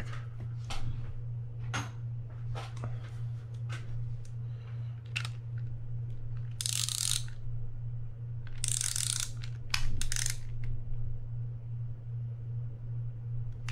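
Small metal clicks and clinks, with two short rasping scrapes about halfway through, as a socket tool tightens a nut on the brass side plate of a Penn International 20 fishing reel. A low steady hum runs underneath.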